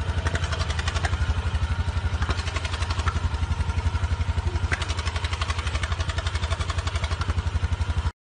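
Quad bike (ATV) engine idling steadily, with an even chugging beat of about ten pulses a second and a few light clicks.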